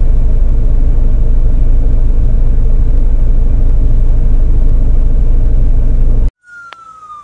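Loud, steady low rumble of a truck on the move, heard from the cab. Near the end it cuts off abruptly and an ambulance siren starts up, its tone falling.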